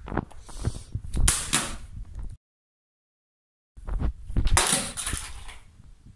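A smartphone being hit: a series of knocks and bangs with rattling handling noise, in two bursts separated by a cut to dead silence.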